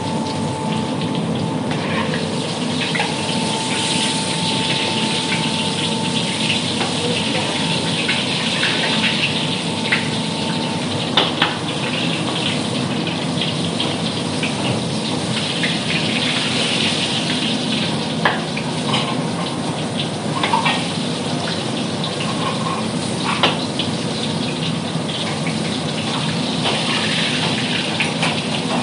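Steady rushing hiss of a busy commercial kitchen where beef is cooking in a large plov kazan. A thin steady whine runs for about the first ten seconds, and a few sharp clinks of utensils come later.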